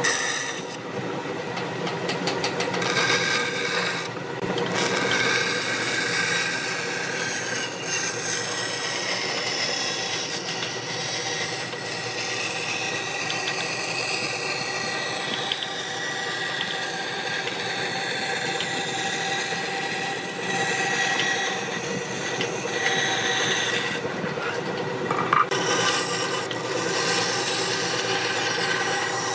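Bandsaw running and cutting through a thick wooden board along a curved line, the blade's cutting hiss over the steady hum of the machine, easing briefly a few times as the feed pauses.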